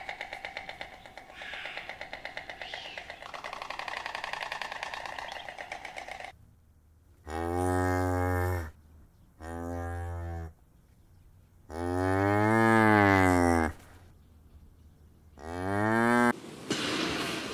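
Cattle mooing four times, each a drawn-out low call; the third is the longest and loudest, rising and then falling in pitch, and the last is short and rising. Before the moos, for about six seconds, there is a steady pitched sound with a fast flutter.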